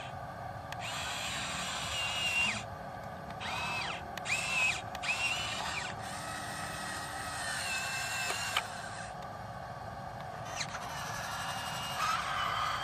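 Small electric gear motors of an RC toy excavator whining in short runs, starting and stopping about half a dozen times. Each run rises quickly in pitch as the motor spins up, then holds steady until it cuts off.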